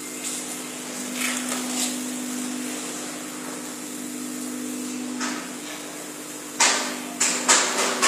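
Steady electrical hum from a body RF slimming machine, which drops out about five seconds in. Near the end comes a run of sharp knocks, about four in a second and a half.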